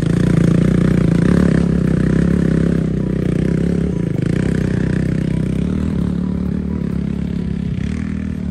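Off-road dirt bike engine running under steady heavy throttle on a steep rocky track, loudest in the first couple of seconds and easing off slightly after.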